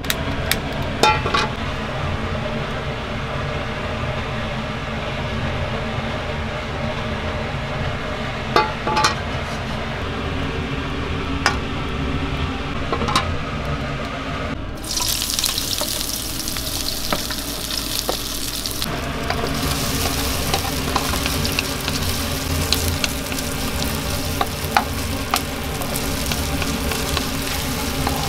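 A black wok on a gas range, knocked and handled with a few sharp clicks over a steady low rumble; about halfway through, loud hot-oil sizzling starts suddenly, then settles into steady frying as chicken pieces are stir-fried with a wooden spatula, scraping and tapping against the pan.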